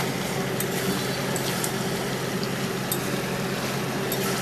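Chicken kosha sizzling in oil in an aluminium kadai, a steady frying hiss with a few sharp pops, over a steady low hum.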